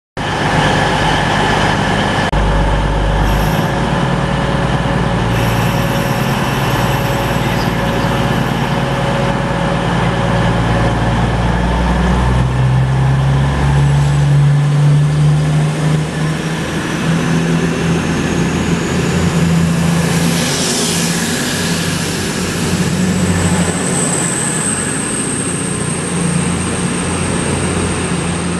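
East Midlands Railway Class 222 Meridian diesel multiple unit pulling away from the platform, its underfloor diesel engines running under power with a faint rising whine. A high steady squeal sets in a little over twenty seconds in.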